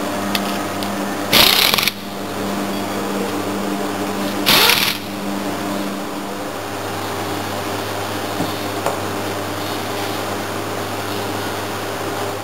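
Hand torque wrench ratcheting on the sail drive leg's flange bolts: two loud half-second bursts of rapid clicking about three seconds apart, over a steady low hum.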